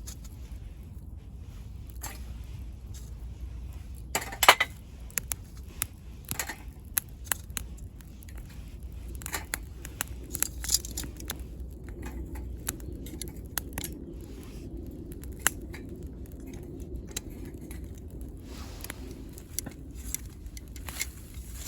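Wood burning in a small camp wood stove, crackling and popping at irregular intervals over a steady low rumble, with one louder crack about four seconds in.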